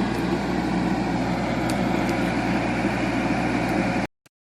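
Backhoe engine running steadily, then cutting off suddenly into dead silence about four seconds in.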